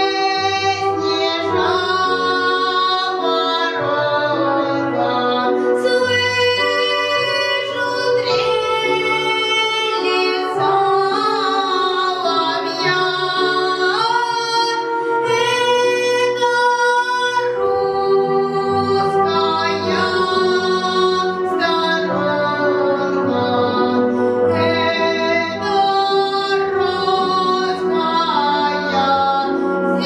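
A boy singing a Russian folk song solo with instrumental accompaniment, his voice holding long notes over a lower, steady backing.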